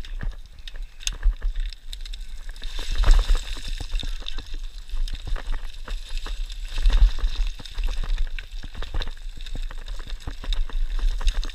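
Boots crunching and sliding on loose scree and broken rock, with trekking poles clicking against the stones. There is scraping rock slide underfoot about three seconds in and again about seven seconds in, and a low rumble on the microphone.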